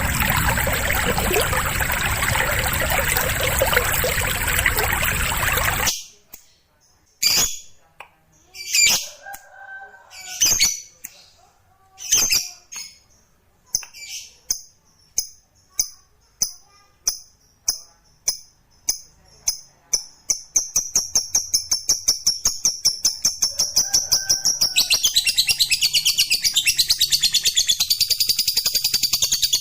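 A steady rushing noise stops abruptly about six seconds in. It gives way to a lovebird's high, scattered chirps that come faster and faster, run into a rapid, even trill and end in a long, loud, continuous chatter, the 'ngekek' call prized in lovebird song training.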